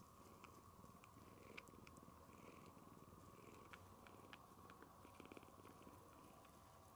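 Faint, steady purring of a tiny red tabby-and-white kitten, with a few small scattered clicks.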